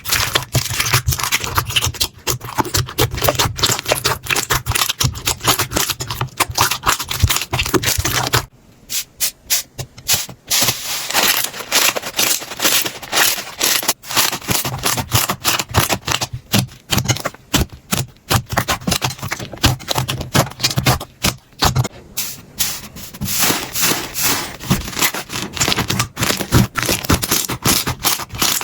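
Slime being squeezed and worked by hands: a dense, fast run of small crackling clicks and pops. About a third of the way in, a low hum under it stops and the clicks thin out briefly before picking up again.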